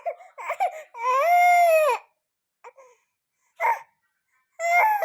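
Infant crying in short high-pitched wails: a couple of quick cries, one long cry of about a second that rises and falls in pitch, then two more short cries near the end.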